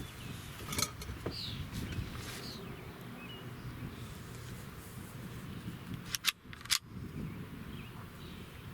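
Wind rumbling on the microphone, with a few faint short bird chirps and several sharp mechanical clicks, the two loudest close together about six seconds in.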